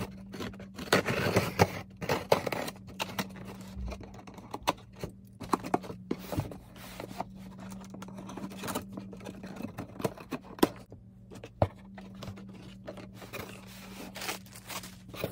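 Cardboard shipping box being opened by hand: a long run of irregular scrapes, clicks and tearing as the packaging is cut and pulled apart.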